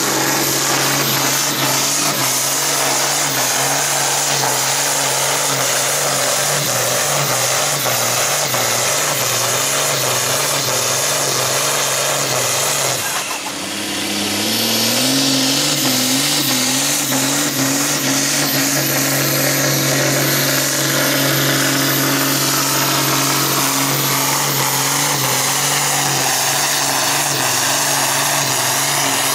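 International Harvester tractor's diesel engine running hard under full load, pulling a weight-transfer sled with a steady deep drone. About halfway through the sound drops away briefly, then the revs climb over about two seconds and hold steady at high speed as a pull gets under way.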